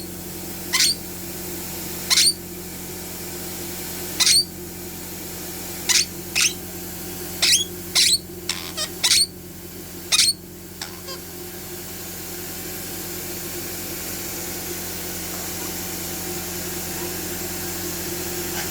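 A pet giving short, high squeaks that rise in pitch, about a dozen in the first eleven seconds, while it is being vacuumed. Under them runs the steady hum of a vacuum cleaner.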